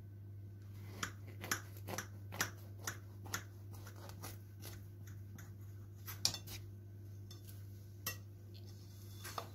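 Knife cutting through the baked crust of a cabbage pie on a plate: a run of short crisp clicks and crunches, about two a second, the loudest about six seconds in.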